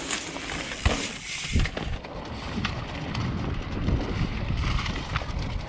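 Mountain bike riding down a dirt downhill trail: tyres rolling over dirt and dry leaves, with the bike's chain and frame rattling and knocking over the bumps, the loudest knocks about one second and one and a half seconds in.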